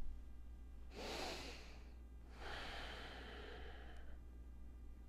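A man's deep breath: a short inhale about a second in, then a longer, full exhale lasting nearly two seconds. This is the breath in and breath out that set up a diaphragm vacuum before the pulses.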